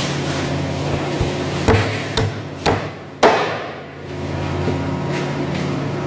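Butcher's cleaver chopping through a lamb carcass on a plastic cutting board: four sharp strikes, about half a second apart, the last and loudest a little over three seconds in. A steady low hum runs underneath.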